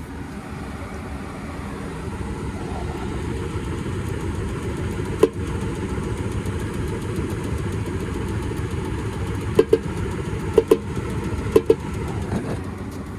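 Goodman gas furnace running with a steady rumble that builds over the first few seconds, with sharp knocks: one about five seconds in, then three quick pairs near the end. The knocking is taken for something loose in the heat exchanger.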